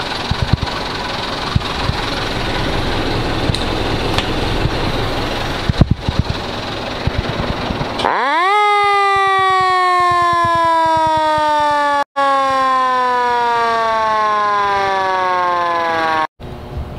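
A steady rushing noise, then about eight seconds in the fire truck's roof-mounted electro-mechanical motor siren spins up into a sharp rising wail. It then winds down slowly, its pitch falling for about eight seconds until it cuts off.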